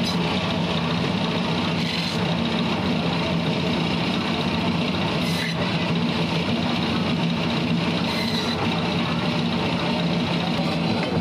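Electric bone-cutting band saw running with a steady motor hum while its blade slices a large whole fish into steaks.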